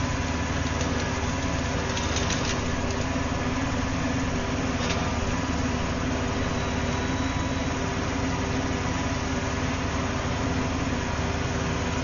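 Auto crane truck's engine idling steadily, with a couple of faint light clicks about two and five seconds in.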